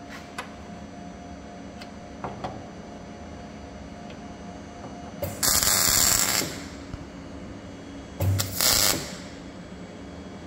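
Two short bursts of a high-pitched workshop power tool, the first about a second long just past halfway and the second shorter near the end, over a steady workshop hum.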